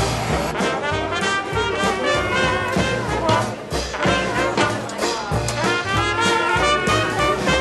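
Background jazz music with brass horns playing over a steady beat.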